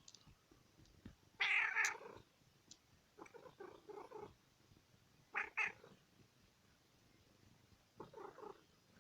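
Domestic cat making odd calls, in four separate bouts: a loud call about a second and a half in, a quieter stuttering one around three to four seconds, two short sharp calls in quick succession a little past five seconds, and a quieter call near the end.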